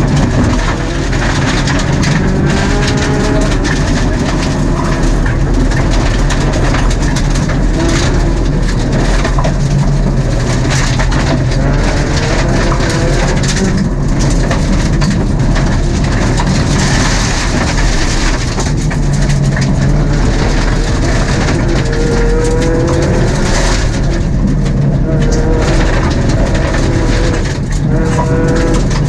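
Mitsubishi Mirage Cyborg RS rally car's MIVEC four-cylinder engine running hard, its revs rising and falling with the gear changes. Gravel and stones pelt the underbody throughout, heard from inside the stripped cabin.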